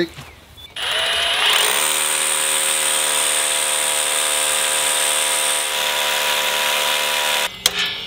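Ridgid Octane SDS Plus hammer drill with a half-inch Bosch SDS bit drilling into a concrete block. The motor spins up with a rising whine about a second in, runs steadily under load, and stops just before the end.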